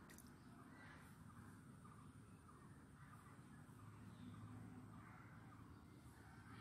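Near silence: faint outdoor ambience with a few distant bird calls.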